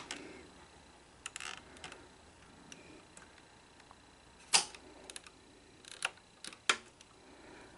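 Front-panel buttons of a Sony SL-HF500 Betamax VCR clicking as they are pressed, a handful of separate clicks spread out a second or so apart, with the machine not responding to them.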